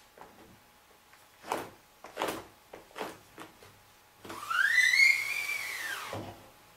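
Round wooden dowel dragged across a wet, coated silkscreen mesh: a few short scraping strokes, then a longer pull about four seconds in that squeals for about two seconds, its pitch rising and then falling back.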